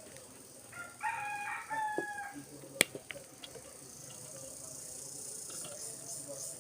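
A rooster crowing once, a call of about a second and a half, over a steady high hiss. Two sharp taps come during and just after the crow, the louder one about three seconds in.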